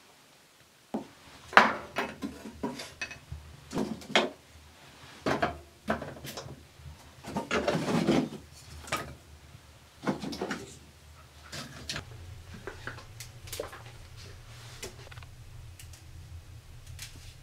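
Kitchenware being handled: a string of separate knocks and clinks of pots, dishes and utensils, with a longer clattering scrape around eight seconds in. The knocks thin out after about twelve seconds, and a steady low hum comes in under them.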